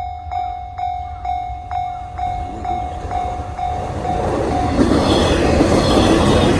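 Japanese level-crossing warning bell ringing at about two strikes a second. About five seconds in, the Yamadori excursion train arrives and runs through the crossing loudly, and its noise covers the bell.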